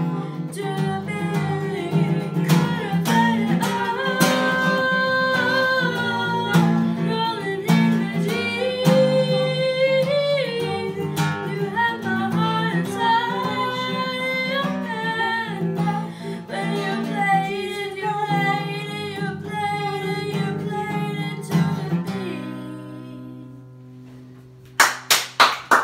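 Acoustic guitar strummed with a girl singing the melody; about 22 seconds in the singing stops and the last guitar chord rings out and fades. Near the end a quick run of sharp claps starts, about four a second.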